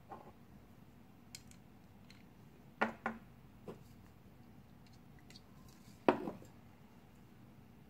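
A metal knife-shaped gas lighter handled and turned over in the hand: a few sharp metallic clicks and knocks, the loudest coming as a quick pair about three seconds in and another about six seconds in.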